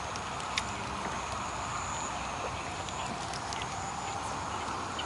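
Evening waterside ambience: a steady high insect trill over a soft background hiss, broken by a few sharp clicks.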